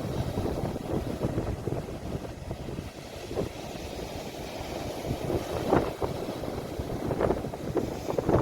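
Sea waves with wind buffeting a phone's microphone: an uneven low rumble, with a few brief surges of splashing water about three, six and seven seconds in.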